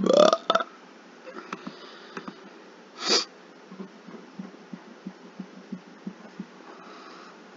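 A person's short vocal sound right at the start, then a single sharp sniff about three seconds in, with faint ticks in between.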